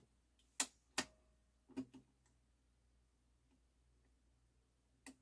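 A few sharp mechanical clicks from a Pioneer PL-560 turntable's push-button controls and tonearm mechanism, three in the first two seconds and one more near the end, during a test of its auto-return. A very faint low hum runs after the third click.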